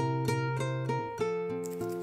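Light instrumental background music of plucked strings: a picked melody of short, quickly decaying notes over a steady rhythm.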